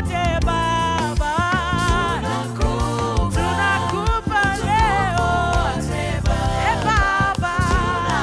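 Upbeat gospel worship music: voices singing over a band with a strong bass line and steady drum beat.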